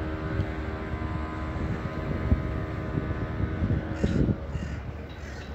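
A steady engine drone with a low rumble and a set of steady tones, fading about four seconds in. A few short crow caws follow near the end.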